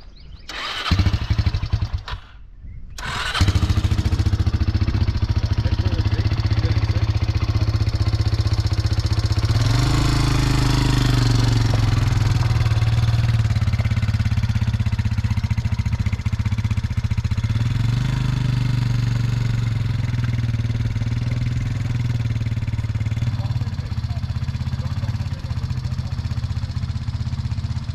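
Polaris quad bike engine starting, then running steadily, with the throttle opened gently about ten seconds in so the engine note rises.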